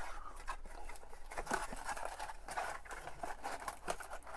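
Cardboard flaps of a trading-card blaster box being pried open and handled: soft, irregular scraping and rustling of thin card stock.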